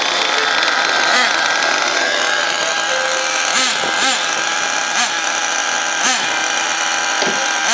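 Small engines of radio-controlled monster trucks running steadily, with several quick rises and falls in pitch as the throttle is blipped in the second half.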